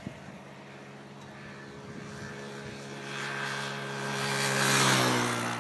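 Motorcycle passing along the highway. Its engine grows steadily louder, peaks near the end, then drops in pitch as it goes by.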